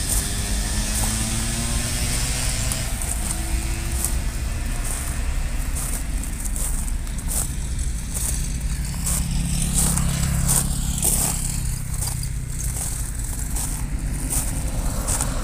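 A car driving past on the road and the steady hum of a small camera drone's propellers hovering a few metres up, with a few pitched tones and scattered crackles.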